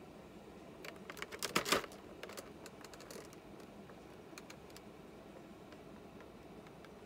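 Clear plastic blister tray crackling and clicking as it is handled, with a quick flurry of clicks about a second and a half in, then a few scattered ticks.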